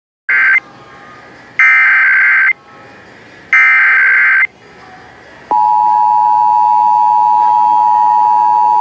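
Emergency Alert System SAME header: three loud bursts of warbling data tones, each about a second long, the first cut short. About five and a half seconds in, the steady two-tone EAS attention signal follows. Together they open a required monthly test.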